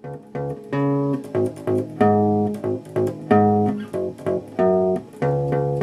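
Guitar music: plucked notes and chords that ring and fade, then settle into a steady repeated rhythm about five seconds in.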